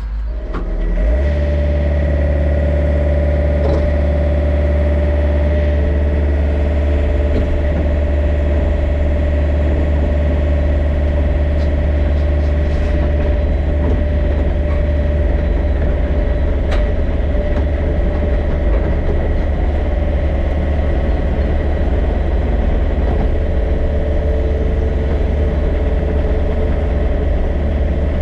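Yanmar excavator's diesel engine throttling up about a second in, then running steadily at working revs, with a steady higher whine over the low engine drone.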